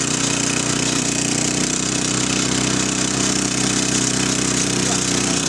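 Walking tractor's small single-cylinder petrol engine running steadily at an even speed as the machine drives along the road.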